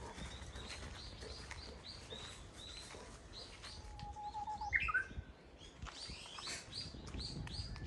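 Small birds chirping in the trees, short high chirps about two or three a second. A lower quick trill and a louder falling call come about halfway through.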